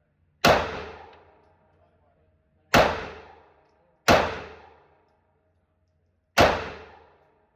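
Four pistol shots from a 9mm handgun at an irregular pace, each a sharp crack with a ringing echo that dies away over about a second, as in an indoor shooting range.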